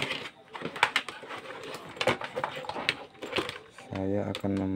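Clicking and rattling of electrical cables and a mains plug being handled and dragged across a workbench. Near the end, a man's voice holds a drawn-out hesitation sound.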